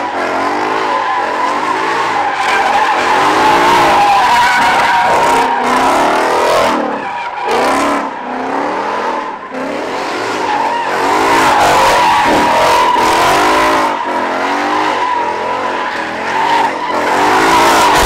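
Car drifting: the tyres squeal in a long, steady squeal while the engine revs rise and fall over and over. The sound dips briefly around eight seconds in, then picks up again.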